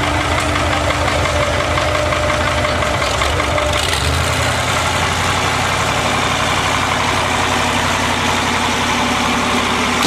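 Tractor engine running steadily, its note changing about four seconds in.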